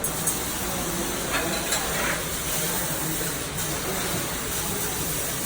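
Electric arc welding: a steady sizzling hiss with a few sharp pops.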